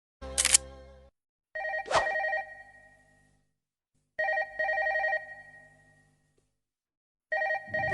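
Telephone ringing: a warbling electronic ring in bursts of about a second, repeated every few seconds. There are sharp clicks near the start and about two seconds in.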